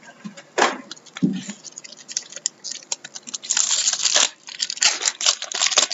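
Upper Deck hockey card pack wrappers being torn open and crinkled, with many small clicks from cards being handled; a longer, denser tearing crinkle comes about three and a half seconds in.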